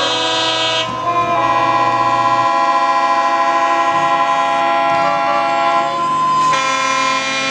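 Background music of sustained chords, each held for a few seconds before changing to the next.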